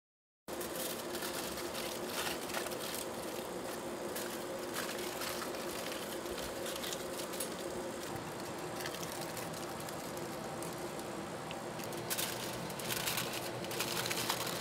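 Aluminium foil crinkling and rustling as it is folded and pressed around a vacuum port, over a steady hum of lab equipment; the crinkling gets louder near the end.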